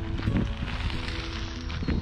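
Background music with held notes that change pitch in steps, over a steady low rumble.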